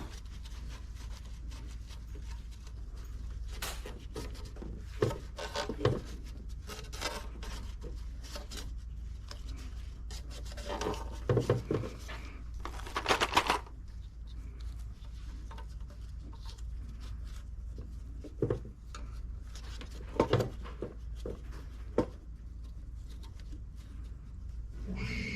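Hands working on intake manifold gaskets and engine parts: scattered light clicks, taps and rubbing, with a louder cluster of knocks and a scrape about halfway, over a steady low hum.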